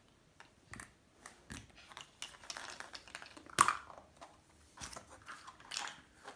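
Faint, scattered small clicks, crinkles and knocks of things being handled. The sharpest click comes about three and a half seconds in.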